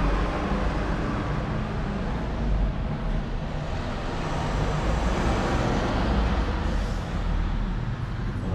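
A car engine running at a steady idle, a low even hum.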